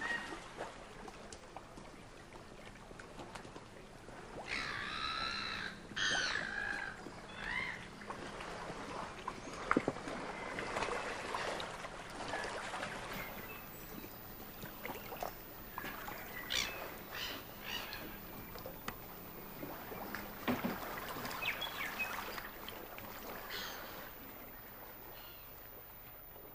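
Birds calling over a faint steady outdoor background: a cluster of warbling, pitched calls about five seconds in, then short chirps at intervals.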